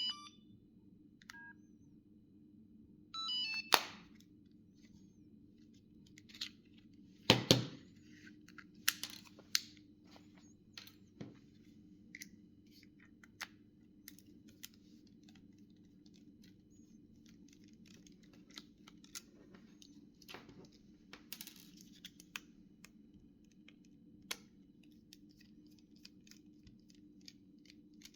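Samsung SGH-2100 mobile phone giving two short runs of electronic beeps, then handled and taken apart: scattered sharp plastic clicks, taps and knocks, two louder knocks a few seconds in.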